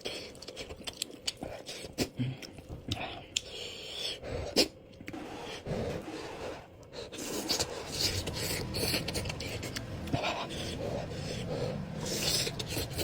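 A person eating spicy noodles up close: sharp breaths and mouth sounds, with scattered scrapes and clicks of utensils.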